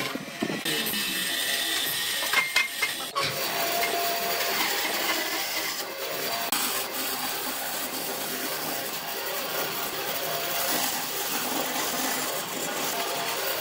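A hollow-chisel mortiser chopping into a wooden block for the first three seconds or so, with irregular knocks. Then a band saw runs and cuts along a wooden board with a steady rasping sound.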